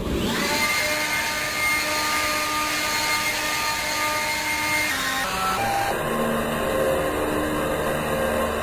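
DeWalt cordless leaf blower running steadily, blowing dust out of a room.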